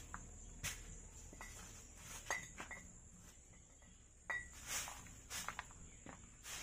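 Short hand broom sweeping over bare dirt ground in a string of brief scratchy strokes, with small bits of debris giving a few light clicks and clinks.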